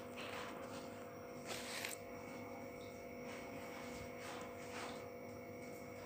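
Quiet room tone with a steady faint electrical hum of several held tones, and a soft brief noise about one and a half seconds in.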